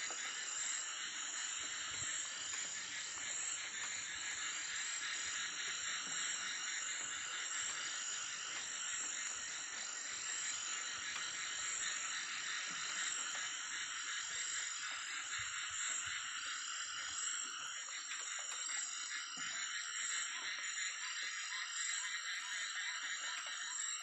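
Night chorus of frogs and insects: a steady high trill with short calls repeating at an even pace over a dense background of calling.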